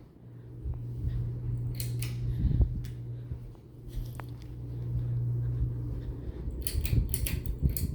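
Ceiling fan motor humming steadily on a low setting, with a few sharp clicks and knocks, several of them near the end.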